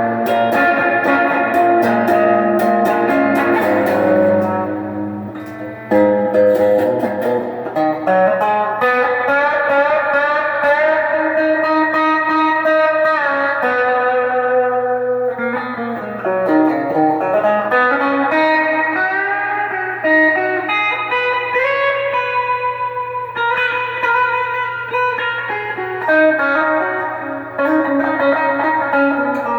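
Donner DST200 electric guitar on its stock humbucker, played through a Sonicake Blues Screamer overdrive pedal in normal mode: overdriven single-note lead lines and chords, with a few string bends about halfway through.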